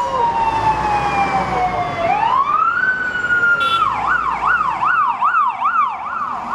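Emergency vehicle siren. It gives a slow wail that falls, then rises and holds, and about four seconds in it switches to a fast wail of about two cycles a second.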